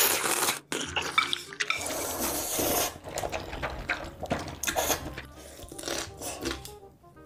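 Close-miked eating: a loud slurp of ramen broth from a large spoon, more wet slurping, then noodles slurped and chewed with many small wet smacks and clicks.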